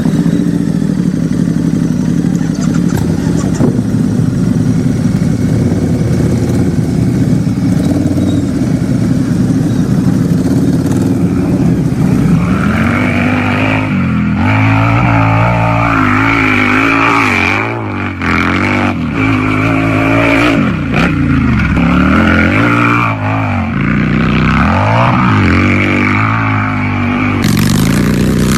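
Motorcycle engine idling steadily, then revved repeatedly from a little under halfway through, its pitch rising and falling with each blip of the throttle.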